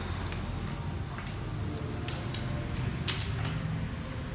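Scattered short clicks and light knocks from cables, connectors and circuit boards being handled on a tile floor, the sharpest about three seconds in, over a low steady hum.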